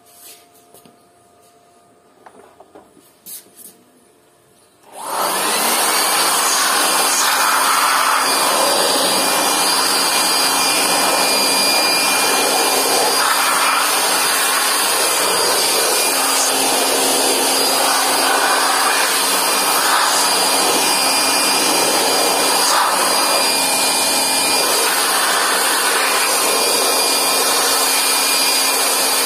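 Handheld electric air blower switched on about five seconds in, then running steadily with a motor hum and a thin whine, blowing dust out of an opened solar inverter. A few faint clicks before it starts.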